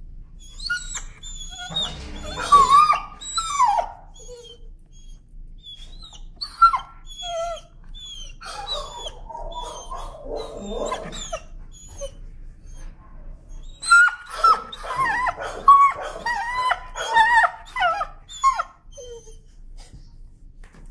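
Timid dog screaming and whining in protest as its head and neck are handled near the collar, a sign of its fear of being held there. The high cries waver up and down and come in three main bouts with single cries between.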